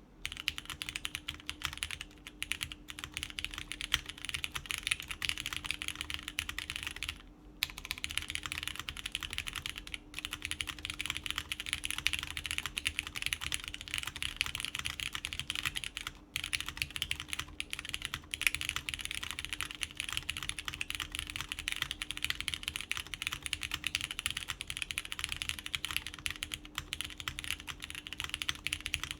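Continuous typing on a Daji Ocho Cuatro 2.1 mechanical keyboard with lubed Cherry MX Brown tactile switches, a polycarbonate plate and GMK keycaps: rapid key clicks with brief pauses about seven and a half, ten and sixteen seconds in.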